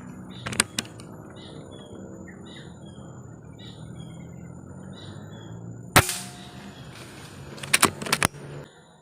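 A .177 calibre PCP air rifle fires once about six seconds in, a single sharp crack, with a few sharp clicks shortly after it and two more early on. Small birds chirp repeatedly in the background during the first half.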